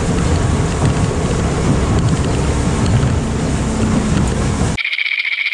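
Motorboat under way: the outboard motor running under wind buffeting the microphone and water rushing past the hull. Near the end it cuts off abruptly to a steady high-pitched buzz.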